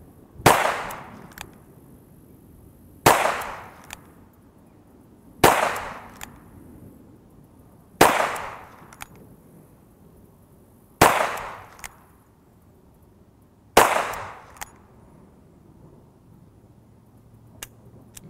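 Six single-action shots of .38 Special fired from an EAA Windicator snub-nose revolver, one every two and a half to three seconds, each report trailing off in an echo. A faint click follows each shot.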